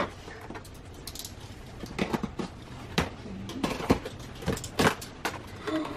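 Knife cutting along packing tape on a large cardboard box: a run of irregular sharp clicks and short scrapes as the blade catches on the tape and taps the cardboard.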